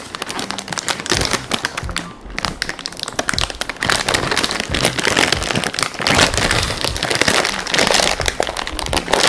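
Plastic Jack and Jill Calbee potato-chip packet crinkling and crackling as it is handled, in dense irregular bursts.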